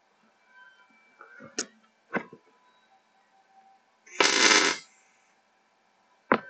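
A MIG welding torch striking a single short tack weld about four seconds in, a dense crackling hiss lasting under a second, with a few sharp clicks before and after it.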